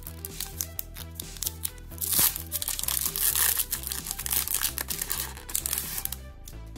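Foil wrapper of a Pokémon TCG Sun & Moon Unified Minds booster pack crinkling and tearing as it is pulled open and the cards are slid out. The crinkling stops near the end. Background music with a steady bass beat plays underneath.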